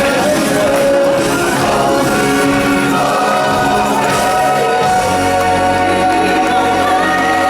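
Live stage-show music with a choir of voices singing over a band. From about three seconds in, the singers hold long sustained notes over a steady bass.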